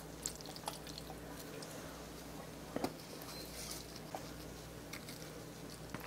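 Close-miked mukbang eating sounds: soft, wet chewing and squishing of food, with scattered faint clicks and a slightly louder double tick about three seconds in.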